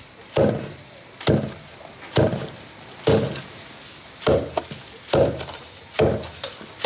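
Fufu being pounded: a wooden pestle striking boiled cassava and plantain in a wooden mortar. Seven dull thuds come in a steady rhythm, a little under one a second.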